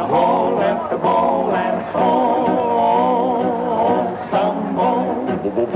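Male voices singing a jaunty song in harmony, with instruments accompanying.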